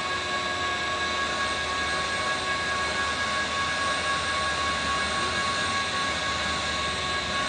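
Distant BNSF train approaching on the main line: a steady rumble with several high, even whining tones held throughout.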